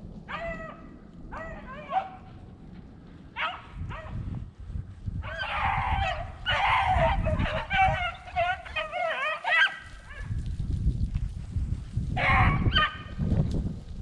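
Beagles baying on a rabbit's track in bouts of drawn-out, bending calls, several voices overlapping in a dense chorus through the middle and again near the end. Wind rumbles on the microphone underneath.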